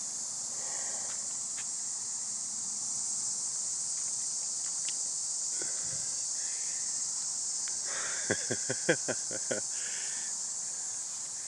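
A steady, high-pitched drone of an insect chorus (crickets). Near the end it is broken by a quick run of about eight sharp taps or knocks in a second and a half.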